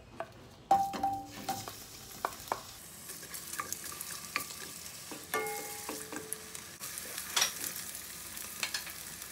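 Sliced white onions tipped into hot canola oil in a stainless-steel wok, landing with a loud knock about a second in and then sizzling steadily. A wooden spatula stirs them, knocking and scraping against the pan, which gives short metallic rings now and then.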